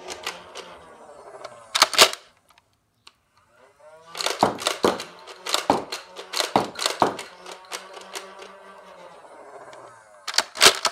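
BoomCo Spinsanity 3X plastic toy dart blaster being primed and fired: sharp plastic clacks and pops, one about two seconds in, a quick run of them between about four and seven seconds, and two more near the end, with rattling from the mechanism between shots.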